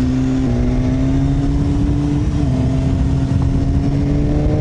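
Sport bike engine, heard from the bike itself, pulling hard as the bike accelerates: its pitch climbs steadily, with a short dip about two and a half seconds in where it shifts up a gear.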